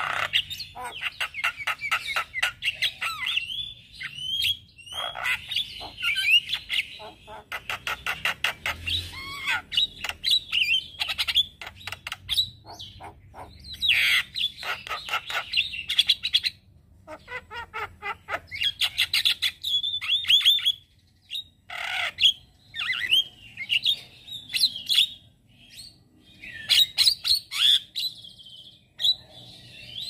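Male Javan myna singing a long chattering song: rapid runs of clicks mixed with whistled notes, broken by a few short pauses.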